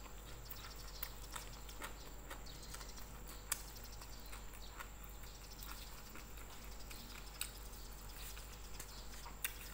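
Close-miked eating by hand: soft chewing with scattered small wet clicks and smacks from the mouth and from fingers picking up rice, with one sharper tick about three and a half seconds in.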